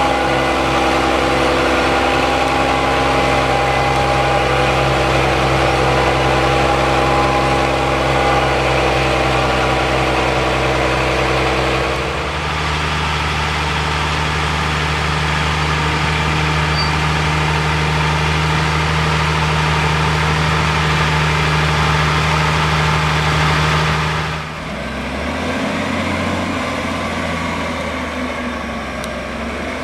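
Heavy diesel engines of farm machinery, a Case IH tractor with a silage wagon and a wheel loader, running steadily on a maize silage clamp. The engine note changes abruptly about 12 seconds in and again about 24 seconds in.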